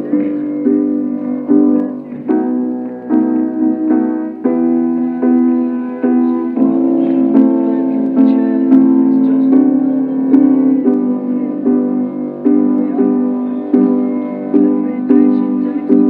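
Piano playing repeated chords in a steady rhythm.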